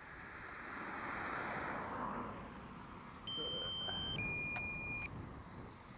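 Electronic beeps from a drone's remote controller: one high steady tone about three seconds in, then a lower beep about a second long. Before them, a rush of noise swells and fades in the first couple of seconds.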